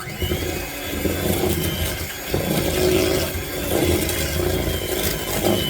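Electric hand mixer running steadily, beating an egg into creamed cake batter in a bowl.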